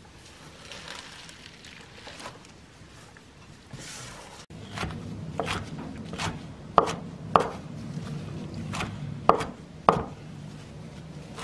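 Kitchen knife chopping bangah (Korean mint) leaves finely on a wooden cutting board: a series of sharp chops starting about four and a half seconds in, roughly one every half second.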